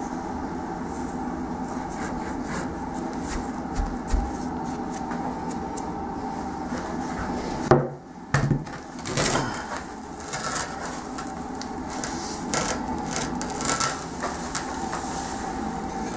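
Hands digging and brushing through play sand to uncover a welded cast iron bench leg that slow-cooled in it overnight: gritty scraping with scattered knocks of the metal, the loudest a little after halfway, over a steady hum.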